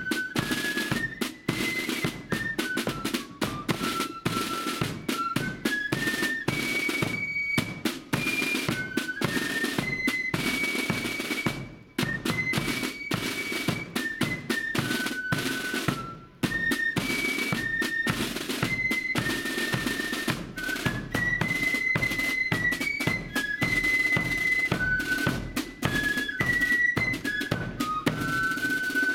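Marching flute band playing a tune: flutes carry a high stepping melody over rattling snare drum rolls and a bass drum beat. The band breaks off briefly twice, about twelve and sixteen seconds in.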